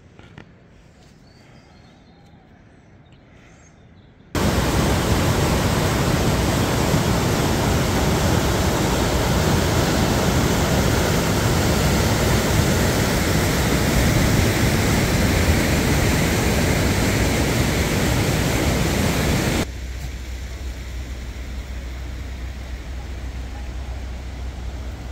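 Fast whitewater river rushing over boulders: a loud, steady rush that starts suddenly about four seconds in and cuts off about twenty seconds in, giving way to a quieter steady noise with a low hum. Before it there are only faint small clicks.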